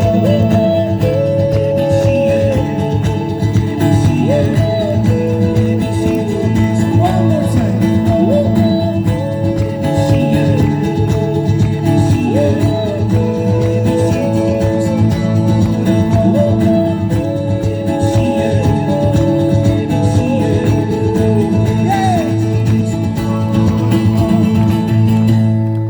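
Live busker music: strummed acoustic guitar with a wordless sung melody over it.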